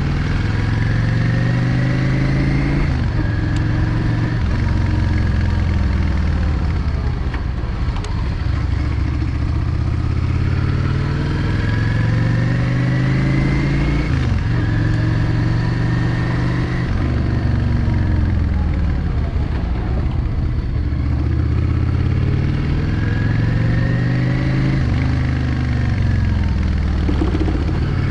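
Yamaha XVS 650 Drag Star's air-cooled V-twin running on the road. Its pitch climbs under throttle and falls back several times, around 3, 14, 17 and 27 seconds in.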